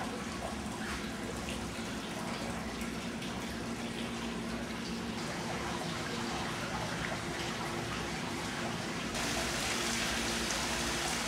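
Water splashing steadily from a tiered stone courtyard fountain, growing a little louder and brighter about nine seconds in.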